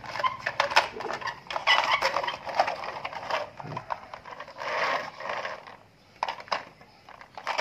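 Hard plastic toy dump trucks clattering and knocking together as they are picked up and handled, with a short scrape about five seconds in as one is pushed along the surface on its plastic wheels, then a few lighter clicks.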